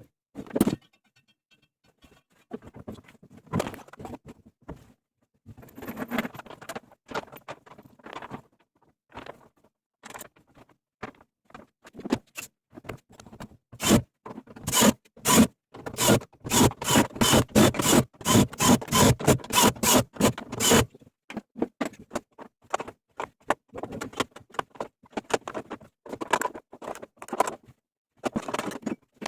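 Hand tools knocking and scraping on metal washing-machine parts during bearing replacement. Irregular knocks and scrapes, with a run of sharp, evenly spaced strikes about three a second through the middle.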